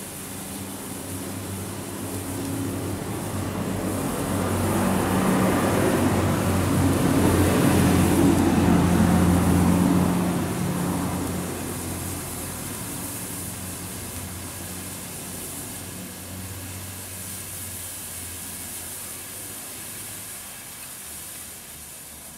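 Red Bengal flare burning with a steady hiss. About four seconds in, a louder low drone swells, peaks around nine seconds and fades again by about twelve seconds.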